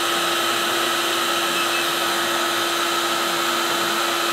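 Electric heat gun blowing steadily: a rush of air with a constant fan hum and whine. It is heating a part so that a bearing slips on by heat.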